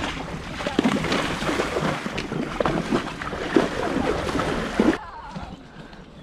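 Two ponies wading through shallow lake water, their legs churning and splashing the water in a steady wash with many irregular splashes. The sound drops to a much quieter level about five seconds in.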